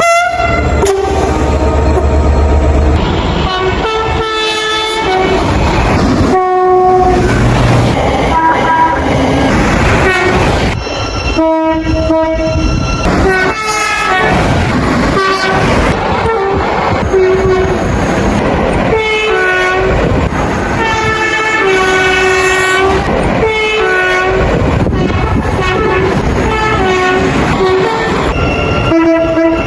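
A string of train horn blasts from different trains, cut one after another, most held for one to two seconds at varying pitches, some alternating between two notes. Trains running on the track sound underneath.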